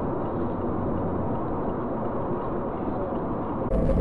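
Steady engine and tyre noise inside a moving car, picked up by a dashcam. Near the end it cuts abruptly to another recording with a louder low rumble.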